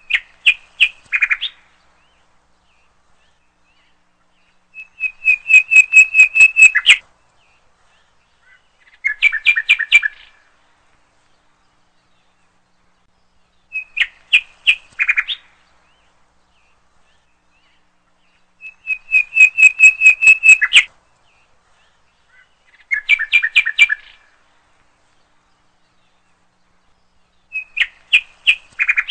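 Bird chirping in short, loud phrases of rapid high notes, one phrase every four to five seconds with silence between. The same run of three phrases repeats about every fourteen seconds, as a looped recording does.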